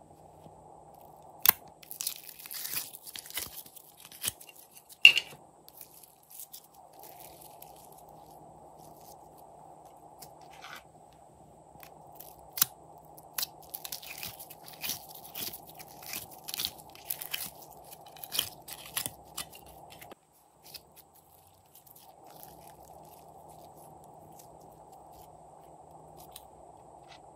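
Hands handling a flexible plastic glitter palette and pressing it into slime: scattered sharp crackles and clicks, thickest early on and again in the middle, over a faint steady hum.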